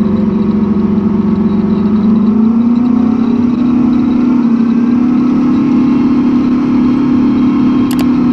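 Big Bud 16V-747 tractor's Detroit Diesel V16 two-stroke diesel working hard under the load of a wide tillage and seeding train. Its note rises about two seconds in and then holds steady.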